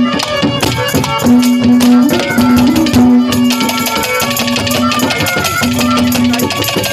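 Instrumental interlude of a Haryanvi ragni: a melody instrument holding long notes, broken off and taken up again every second or so, over fast steady drumming.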